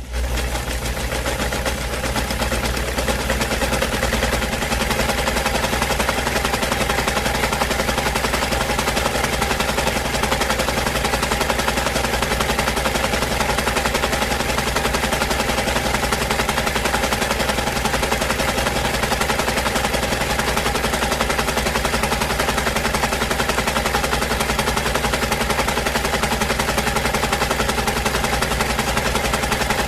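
Sewing machine running steadily at high speed, its needle mechanism making a fast, even rattle of stitches.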